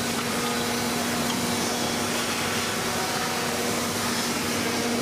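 Steady noise of foundry machinery with a constant low hum underneath, no knocks or breaks.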